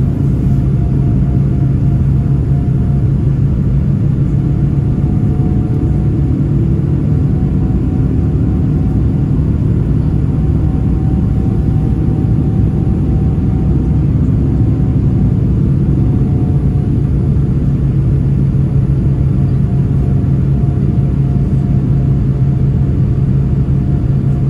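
Cabin noise of a Boeing 787-9 at climb power: the steady low rumble of its Rolls-Royce Trent 1000 engines and the airflow past the fuselage, heard from a seat by the wing. Faint higher tones come and go over it.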